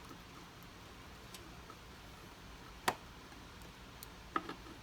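Light clicks and ticks of a Phillips screwdriver tightening a screw into the UPS battery cover. There is one sharp click about three seconds in and a softer one near the end.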